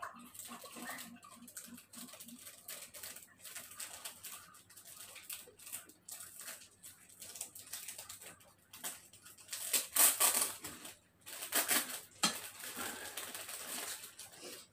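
Quiet eating sounds: spoons clicking and scraping on bowls and plates, in small irregular clinks, with louder clusters about ten seconds in and again near twelve seconds.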